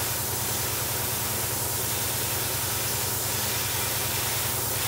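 Cheap airbrush spraying enamel paint, a steady hiss of air and paint mist, swelling faintly about every second and a half as the brush makes its passes, with a steady low hum underneath.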